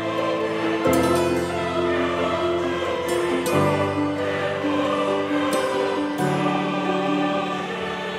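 Slow background music of held chords that change about every three seconds.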